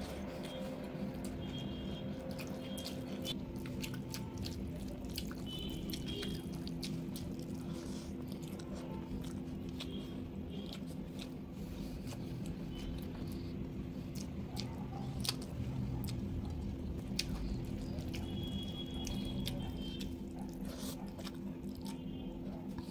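Close-up eating by hand: chewing, wet mouth clicks and smacks, and fingers squishing and mixing rice with egg korma gravy, over a steady low hum. Short high beeps or chirps come through now and then.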